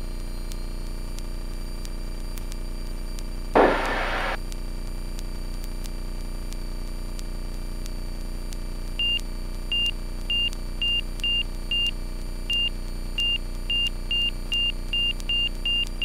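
Carbon Cub FX-3's engine and propeller running steadily at low power during the landing rollout, with one brief loud burst of noise about three and a half seconds in. From about nine seconds in, a high cockpit alert beep repeats, at first under twice a second and then faster and faster.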